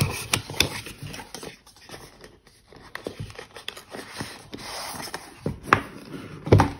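Cardboard packaging of a smartwatch box being handled: the card sleeve scrapes as it slides off the inner box, with scattered clicks and taps of card, and two sharper knocks near the end.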